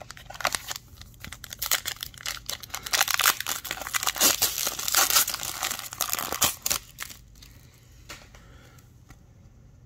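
An Upper Deck hockey card pack's shiny plastic wrapper being torn open and crinkled in the hands, a dense crackle that is thickest in the middle and dies away about seven seconds in.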